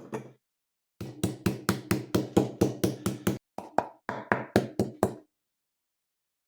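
A rapid series of sharp knocks on a hard surface, about four a second, pausing briefly partway through and stopping after about four seconds.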